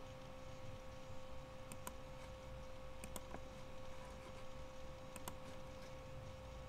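Computer mouse clicking a few times, in short pairs of sharp clicks, over a steady low hum.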